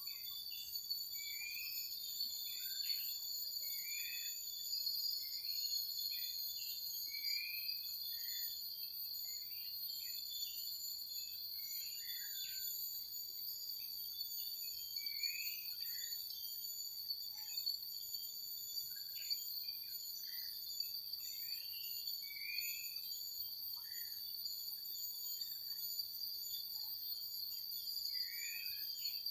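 Steady, high-pitched chorus of forest insects, unbroken throughout, with short chirps scattered through it about once or twice a second.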